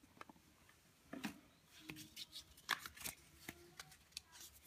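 Paper and cardboard handling: a folded paper user manual and a thin cardboard box tray being picked up and moved, giving a scatter of soft rustles and light taps.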